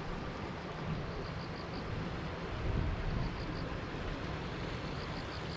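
Wind buffeting the microphone outdoors: a steady rumbling hiss. Over it, a faint, high, rapid chirping comes in short runs, near the start, about halfway and at the end.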